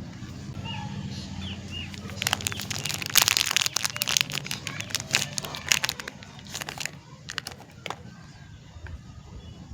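Soap wrapper crinkling and tearing as a bar of soap is unwrapped by hand: a quick run of crackles starting about two seconds in and easing off after several seconds.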